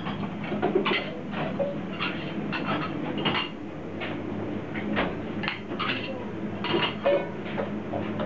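Restaurant kitchen during service: irregular clatter and clinking of pans, plates and utensils over a steady low hum.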